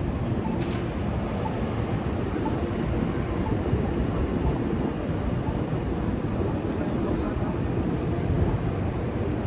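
Steady city street noise: a continuous low rumble of traffic with hiss over it, with no single event standing out.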